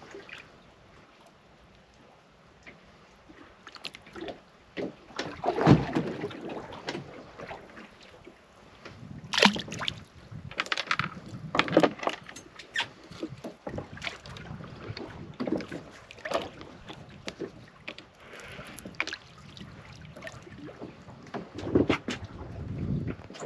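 Water sloshing against a small boat's hull, with irregular knocks and clatter from gear being handled on board.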